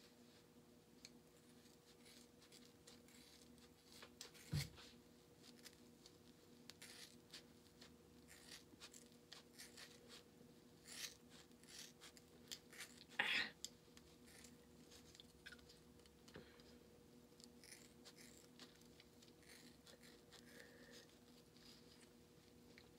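Faint, repeated snips of scissors cutting through thick dreadlocks close to the scalp, with handling noise from hands in the hair. A louder knock comes about four and a half seconds in and a louder scrape around thirteen seconds, over a faint steady hum.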